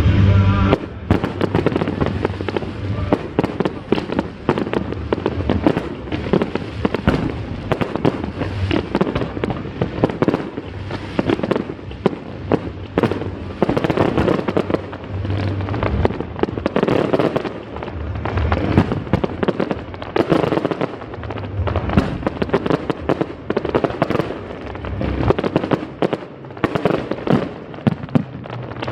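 Aerial fireworks going off in a dense, continuous barrage of crackling bangs. Deeper booms recur every few seconds.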